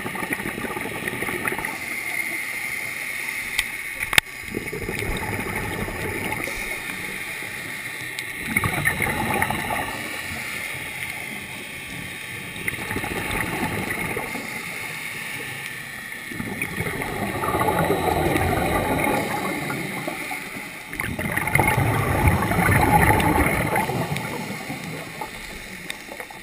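Scuba diver breathing through a regulator underwater: a steady hiss, with a louder rush of exhaled bubbles every few seconds. A single sharp knock about four seconds in.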